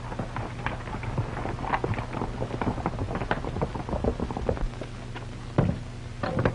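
Hoofbeats of several horses galloping away on a dirt trail, a dense irregular clatter. Near the end come two louder thumps, less than a second apart.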